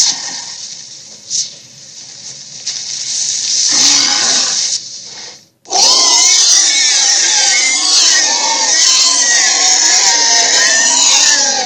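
Sound effects for a made-up creature: a hissing, rushing noise for the first few seconds, a short break, then a dense run of many overlapping, wavering animal-like cries.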